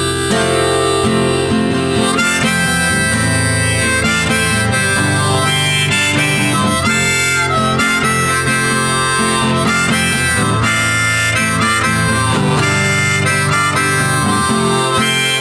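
Background music: an instrumental break led by harmonica over strummed guitar, with a steady bass.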